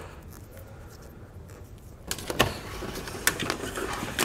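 Wiring harness and plastic airline tubing being pulled up through a pickup's engine bay by hand. After a quiet first couple of seconds, there is a steady rustling and scraping with scattered small clicks that builds toward the end.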